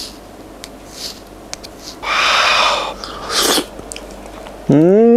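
Eating shaved ice from a small cup with a spoon: light clicks of the spoon in the cup, then a noisy slurping mouthful about two seconds in and a shorter one just after. Near the end comes a loud hummed 'mmm' of enjoyment that rises and falls in pitch.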